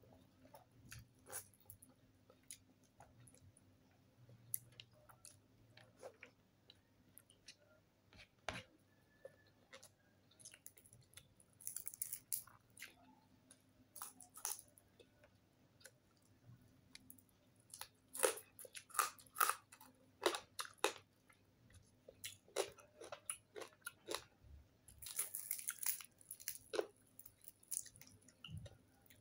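Close-up mouth sounds of someone eating crispy fried tilapia with rice: chewing with scattered crunches and wet clicks, coming in denser runs about two-thirds of the way through and again near the end.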